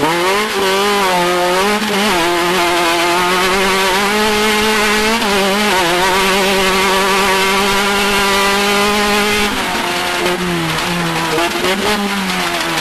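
Off-road race vehicle's engine running at high revs. Its pitch dips and climbs with the throttle and holds nearly steady for several seconds in the middle, over a steady hiss.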